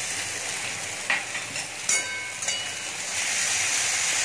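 Chopped onions and green chillies sizzling in oil in a metal kadhai, with a few clinks and scrapes of a metal spoon and spatula against the pan. The sizzle grows louder about three seconds in.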